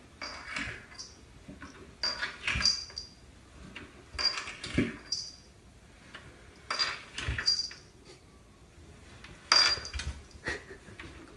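A cat sliding down wooden stairs one step at a time: soft thuds and scrapes of its body and claws dropping onto each tread, coming in five bursts about every two seconds, with a light metallic jingle in each burst.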